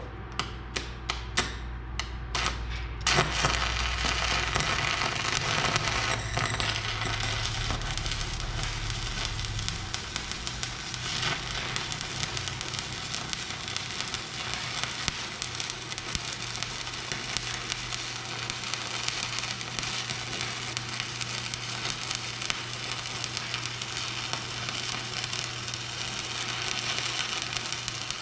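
Stick welding arc crackling and sizzling steadily while a weld bead is run. It follows a few sharp scratchy clicks over the first three seconds as the electrode is struck, and a steady low hum sits underneath.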